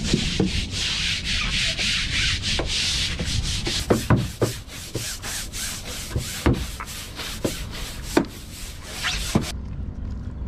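Long-handled scrub brush scrubbing a fibreglass boat deck in quick back-and-forth strokes, with a few sharper knocks in between, as the boat is washed down after a trip.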